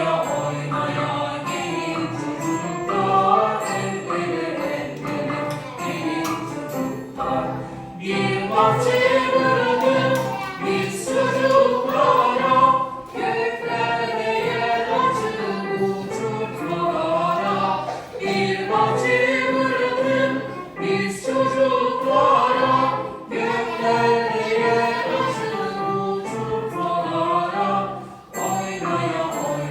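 Background music with voices singing a melody over instruments.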